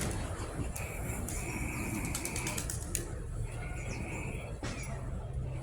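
City street ambience: a steady low traffic rumble, a few sharp clicks, and several flat, high whistle-like tones that come and go, the longest lasting about a second.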